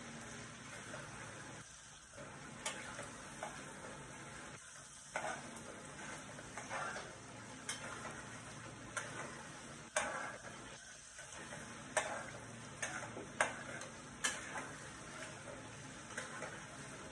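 A spatula stirring a thick curd-and-cream masala in a metal kadhai over a gas flame: a low, steady sizzle with irregular sharp scrapes and taps of the spatula against the pan, coming more often in the second half.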